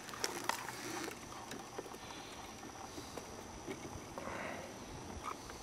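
Faint scattered clicks, taps and rustles of hands handling a caught largemouth bass while unhooking the lure, with a soft rustle about four seconds in.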